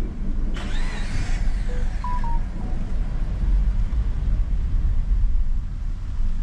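Low rumble of a car rolling slowly, heard from inside the cabin, with a brief hiss about a second in and a few short faint beeps around two seconds in.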